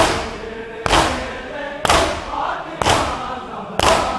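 A large crowd of mourners beating their chests in unison (matam), five loud slaps about one a second, with many men's voices chanting a noha between the strikes. Recorded on a mobile phone.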